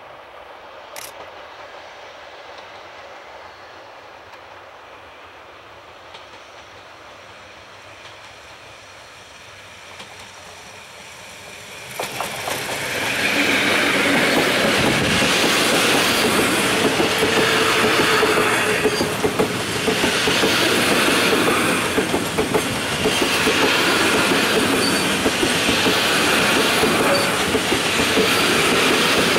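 Sangi Railway electric locomotive ED5081 hauling a cement freight train of tank wagons past close by. It is faint for about twelve seconds, then it turns loud suddenly as the locomotive arrives. The tank wagons then roll past with a rhythmic clatter of wheels over the rails that swells each time a wagon's bogies go by.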